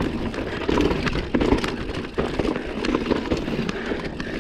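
Mountain bike ridden fast down a loose, loamy trail: tyres churning through dirt, with frequent sharp clicks and knocks from the bike over the ground and a low rumble underneath.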